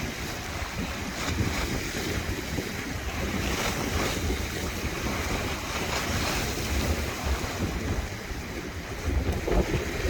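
Sea waves washing in and breaking under a strong wind, with gusts buffeting the phone's microphone in a heavy low rumble.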